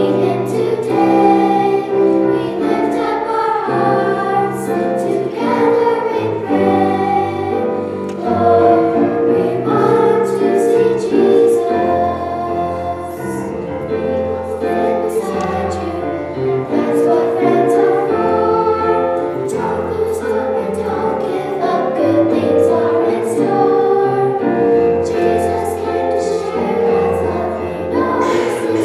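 Choir singing with instrumental accompaniment, in held chords over a sustained low bass line.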